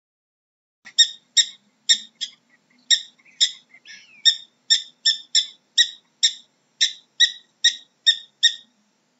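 Prairie dog giving a long run of sharp, high chirping barks, about two a second.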